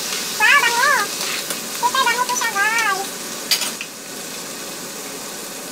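Sliced onions sizzling in a frying pan, a steady hiss. Twice in the first three seconds, a high, wavering cry rises and falls over it, and there is a single sharp click about three and a half seconds in.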